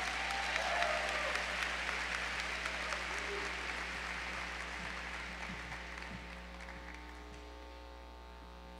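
Audience applauding, the clapping dying away gradually over several seconds, over a steady low electrical hum.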